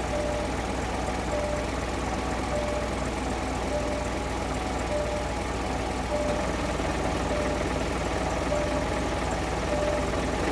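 Isuzu Giga truck's diesel engine idling steadily, with a short beep repeating about every second and a quarter.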